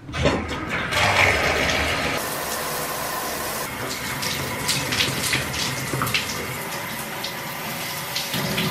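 A shower is turned on at its lever valve and water runs steadily, with scattered splashes and drips.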